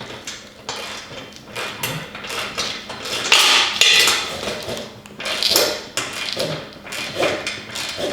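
Wrenches tightening nuts onto the bolts of a steel cart's tow-handle mount: irregular metal clinks and short scraping strokes, about one or two a second.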